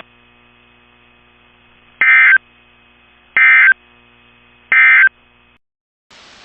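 Emergency Alert System end-of-message signal: three short bursts of warbling SAME digital data tones, evenly spaced about a second and a third apart. Near the end it cuts to steady hiss.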